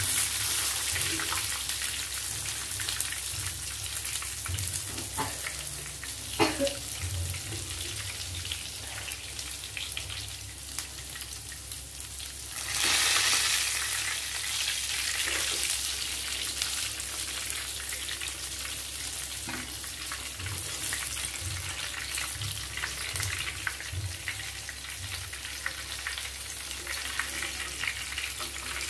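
Mutton seekh kebabs sizzling in hot oil in a frying pan, a steady hiss that swells louder for a second or two about halfway through, with the burner already turned off. A brief knock of the metal slotted spoon against the pan about six seconds in.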